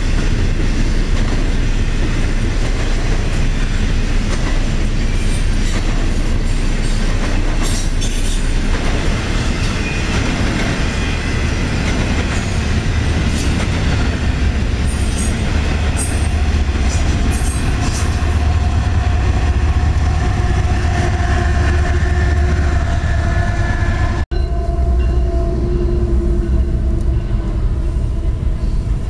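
Double-stack intermodal freight train passing close by: a loud, steady rumble and clatter of wheels over the rail joints as the container well cars roll past. After a brief break about three-quarters of the way through, the rumble goes on with several steady tones sounding over it.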